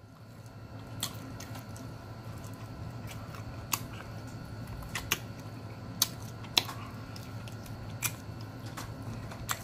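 Eating sounds: scattered sharp clicks and smacks as meat is picked and sucked off a smoked chicken leg bone with the fingers and mouth, over a low steady hum.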